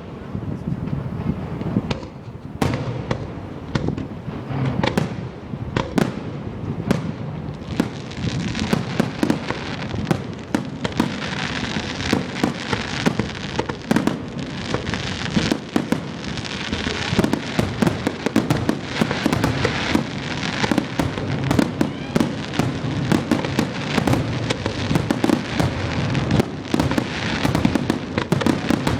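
Fireworks going off: separate loud bangs at first, then from about a quarter of the way in a dense, continuous barrage of bangs and crackling.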